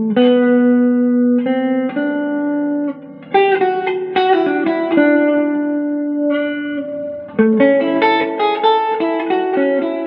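Newly repaired tobacco-sunburst Les Paul-style electric guitar playing a slow melody of single picked notes, each ringing on for up to a second or so, with a brief break about three seconds in.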